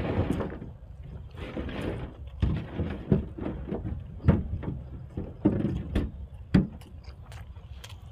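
Close-up eating sounds: a person chewing and crunching food, with irregular sharp clicks and knocks.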